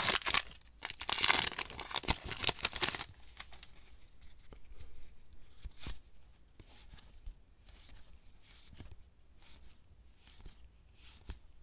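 Foil booster-pack wrapper crinkling loudly as it is torn open, for about the first three seconds. Then much quieter, scattered clicks of trading cards being flipped through by hand.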